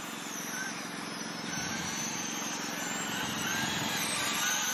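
Small radio-controlled dirt oval race cars running a slow pace lap, with the whine of their electric motors rising and falling in pitch as they circle the track.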